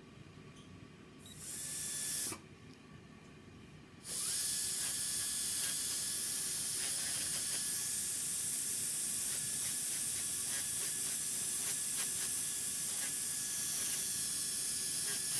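Slow-speed dental handpiece spinning a polishing cup on a freshly cured composite resin filling: a high hiss with a steady whine. It runs briefly about a second and a half in, stops, then starts again at about four seconds and keeps running.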